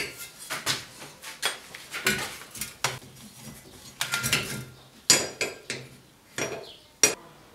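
Metal parts and tools being handled and set down on a work surface: an irregular series of sharp clinks and knocks, some ringing briefly.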